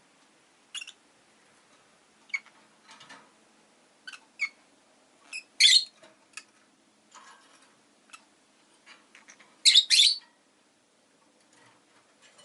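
Rosy-faced lovebird chirping and squawking in short, scattered calls with gaps between them, the loudest about halfway through and again near ten seconds in.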